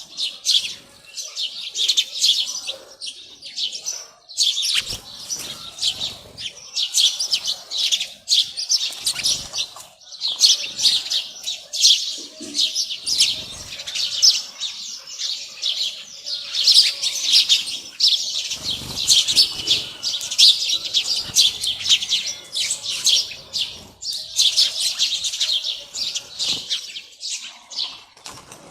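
A flock of small birds chirping, a dense, rapid run of high chirps with brief lulls every few seconds.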